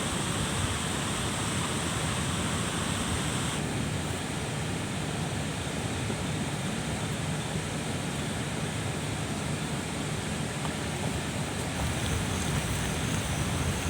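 Steady rush of water and wind outdoors, with a deep low rumble underneath. The higher hiss drops a little about three and a half seconds in.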